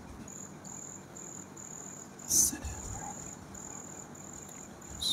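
Cricket chirping steadily in short high-pitched pulses, about three a second. A brief thump about two and a half seconds in is the loudest sound.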